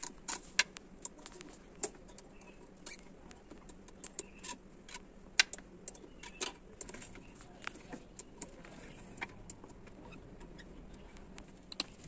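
Scattered sharp metallic clicks and taps of hand tools and fittings being worked at an engine's throttle body and intake hose, irregular and a few each second, over a faint steady hum.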